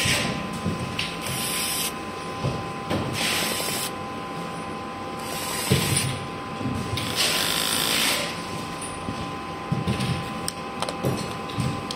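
Cordless drill driving screws out of the decoy's plastic body in several short runs of about a second each, with plastic handling knocks between them.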